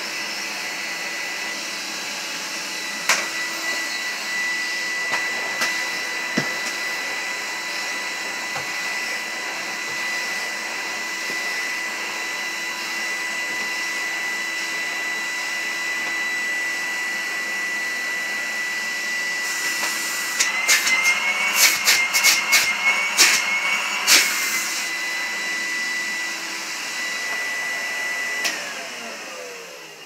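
Cream and brown Numatic Henry vacuum cleaner running with a steady high whine as its floor tool is pushed over carpet, with a cluster of clicks and rattles about two-thirds of the way through. Near the end it is switched off and the motor winds down with a falling pitch, a rundown that the owner says doesn't sound the best.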